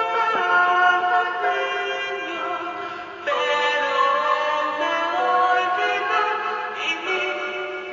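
Music with long, layered held notes and no words. It dips briefly about three seconds in, then carries on.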